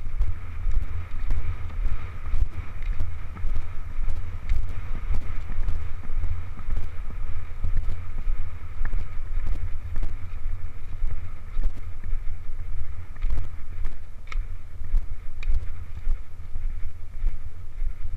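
Wind and movement rumble on a helmet-mounted camera carried on a horse moving quickly along a dirt track. A loud low rumble pulses unevenly with the ride.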